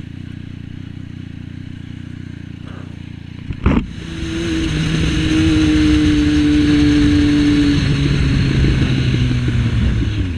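Triumph Street Triple 675's inline three-cylinder engine with a custom exhaust, running quietly at first; a sharp knock comes about three and a half seconds in. Then the engine opens up loud and holds a high, steady note, drops in pitch about eight seconds in, and eases off near the end.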